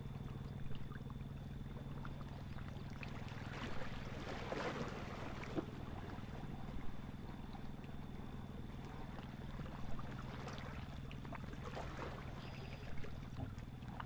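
A shantyboat's motor running steadily with a low hum, while water splashes and gurgles along the hull; a few light knocks come through now and then.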